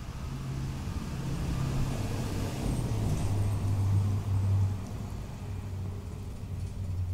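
Road vehicle engine running close by, a low hum that drops in pitch about two seconds in, with traffic noise swelling for a couple of seconds around the middle.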